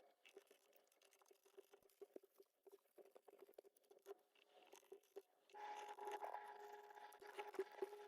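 Faint, irregular small clicks and scrapes of a hand screwdriver driving small screws. A low steady hum becomes louder about five and a half seconds in.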